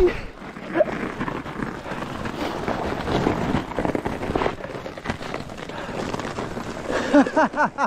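Fat bike riding fast down an icy, snowy trail: a continuous crunching rattle of wide tyres and bike over ice and frozen snow, with wind buffeting the microphone.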